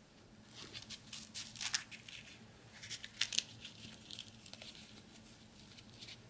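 Crisp deep-fried dough pastry dusted with powdered sugar being snapped and broken apart by hand: a run of light crackles and crunches, loudest about a second and a half and about three seconds in.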